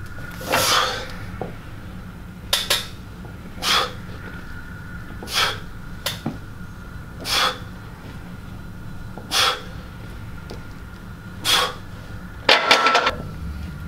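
A weightlifter's sharp, forced exhales, one with each bench-press rep, roughly every two seconds, with a quicker cluster of breaths near the end.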